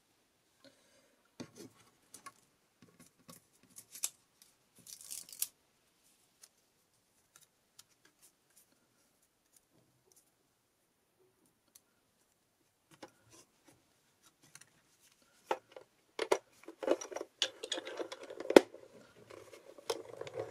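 Paper and card pieces being handled and arranged on a cutting mat: scattered light rustles and taps, with a quiet stretch in the middle. In the last few seconds the handling gets busier, with sharper clacks and rustling as a small die-cutting machine is picked up.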